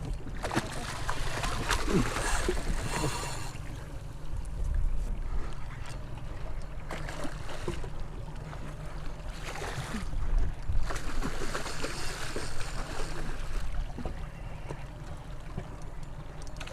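Steady low rumble on a small fishing boat on open water, with wind and water noise swelling and fading every few seconds and a few scattered knocks.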